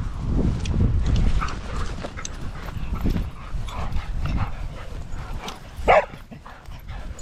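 A dog gives one short, sharp bark about six seconds in, over a low rumbling noise from the dogs' play and the walk.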